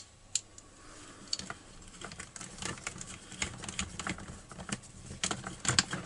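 Light clicking and clatter of a nut driver turning nuts onto the studs of a chainsaw's air filter housing, small metal-on-metal and plastic ticks that come closer together near the end.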